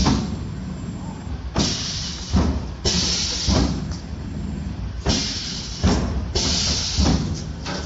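Automatic cookie depositing machine running, a repeating cycle of low thumps and hissing bursts about every second and a half as the machine deposits rows of dough.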